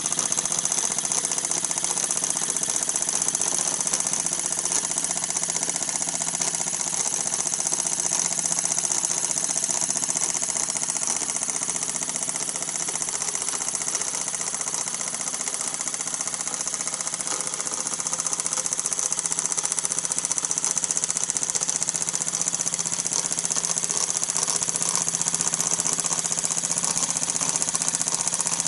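Meccano toy steam engine with a vertical boiler running steadily at speed: a rapid, even chuffing clatter from the cylinder and crank, with a steady hiss over it.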